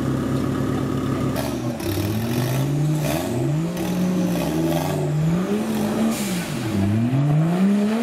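Off-road competition 4x4's engine running at a steady speed, then from about a second and a half in revving up and down over and over as the vehicle works through deep mud.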